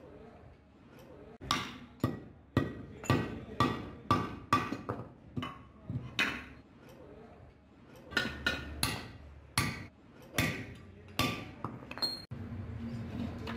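Hammer blows on metal, each with a short ring, in runs of strikes about two a second with a pause around the middle. Near the end the strikes stop and a low steady hum takes over.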